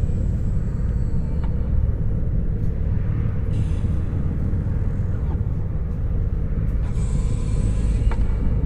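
Darth Vader breathing sound effect played by a life-size Vader bust display: two hissing breaths about three and a half seconds apart over a steady low rumble.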